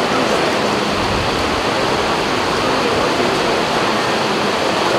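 Heavy rain falling, a steady, loud, even hiss with no letup.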